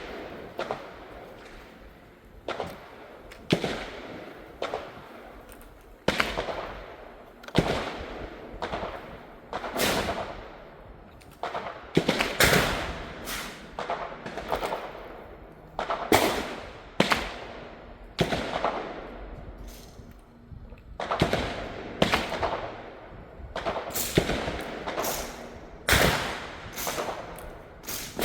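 Gunfire: a long string of single shots, irregularly spaced at roughly one a second and sometimes closer, differing in loudness, each trailing off in a short echo.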